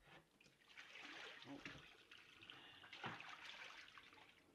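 Soapy wash water poured out of a plastic bowl into a kitchen sink, splashing and trickling toward the drain for about three seconds, swelling briefly near the end before it tails off.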